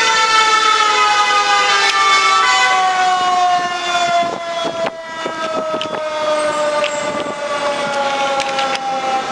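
Fire engine's mechanical Q2 siren winding down, one long tone whose pitch falls slowly and steadily as the rotor coasts to a stop. A few short clicks and knocks sound over it.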